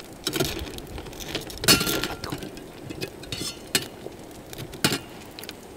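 Cockle shells and metal tongs clinking against a stainless steel bowl: a handful of sharp clinks, the loudest about a second and a half in with a short ring.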